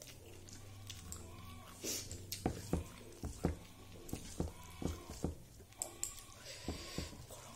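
Close-up chewing and lip-smacking of a person eating soft rice and mashed potato by hand: a string of irregular small wet clicks.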